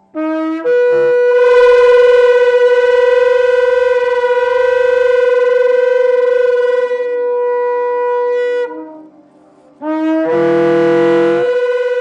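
Shofar, a long spiral horn, blown in two long blasts. Each blast starts on a short low note and jumps up to a high held note. The first is held about eight seconds and breaks off, and the second begins about ten seconds in.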